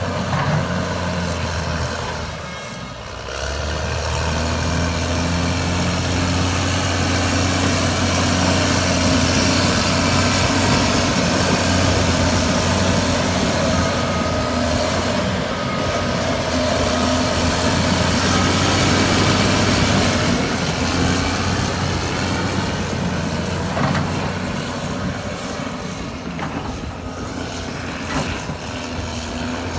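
Caterpillar D6R2 bulldozer's diesel engine working. It dips briefly about three seconds in, then runs hard under load for about fifteen seconds before easing off.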